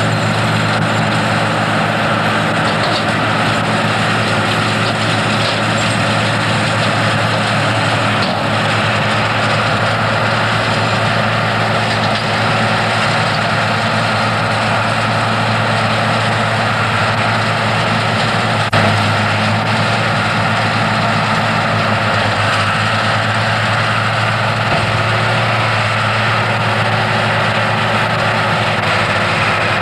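Farm tractor engines running steadily while pulling round balers, a continuous even drone with no change in pace.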